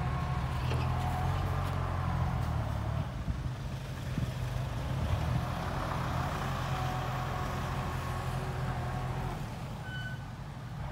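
Diesel engine of a loaded dump truck running at low speed as it manoeuvres, with a steady low hum. A few short high beeps come near the end.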